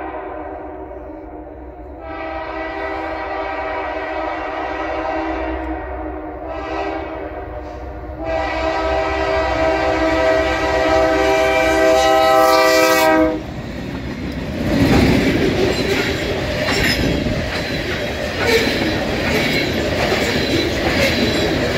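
Nathan K3LA five-chime air horn on a GE C44-9W diesel locomotive, sounded for a grade crossing: shorter blasts, then a long final blast that cuts off about thirteen seconds in. The locomotives then pass, followed by loaded covered hopper cars rolling by with a steady clatter of wheels over the rail joints.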